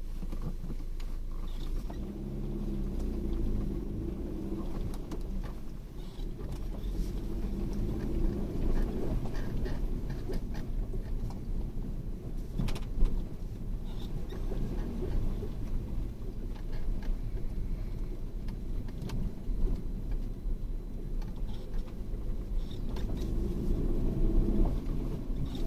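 A vehicle's engine running steadily while driving over a rough track, with scattered clicks and rattles and one sharp knock about halfway through.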